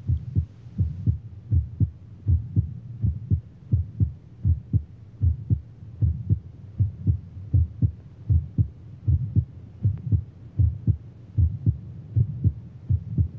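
Heartbeat sound effect: a steady rhythm of low double thumps, lub-dub, repeating evenly without a break.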